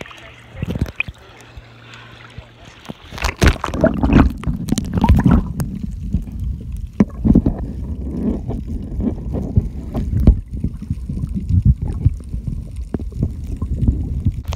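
Muffled underwater sound heard through a phone's waterproof case while snorkeling: low rumbling water movement with irregular knocks and thumps against the case. It starts about three seconds in, after a quieter hiss.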